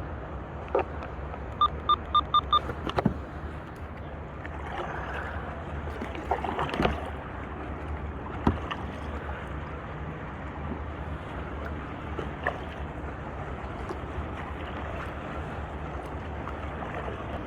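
Steady wash of wind and water around a fishing kayak drifting at rest, with a few sharp knocks. About two seconds in, a quick run of five short, high electronic beeps.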